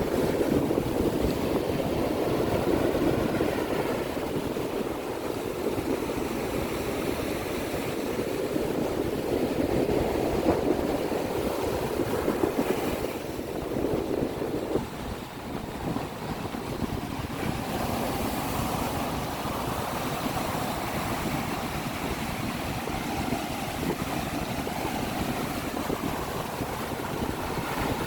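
Sea waves surging and washing at the shore, a continuous rushing noise that swells and eases, with wind buffeting the microphone.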